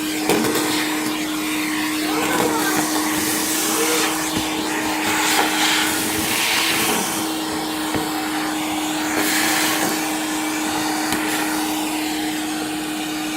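Numatic Henry cylinder vacuum cleaner running with a steady motor hum, its rushing hiss swelling several times as it sucks up the dry food (rice, lentils, couscous, flour and leaves) scattered for it.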